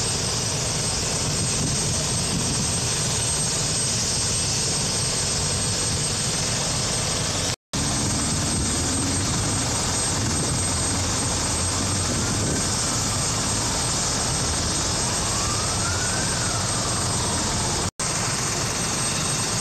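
Helicopter's turbine engines running on the ground: a steady, loud rush of rotor and engine noise with a thin high-pitched turbine whine. The sound cuts out briefly twice, and a faint rising-and-falling tone comes through twice in the second half.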